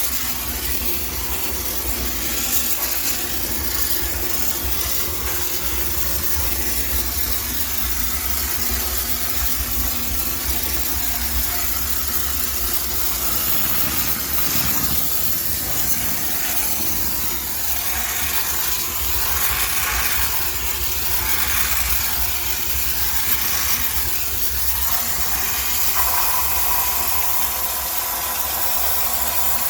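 High-pressure steam cleaner spraying: a steady hiss of steam over the low hum of the machine running.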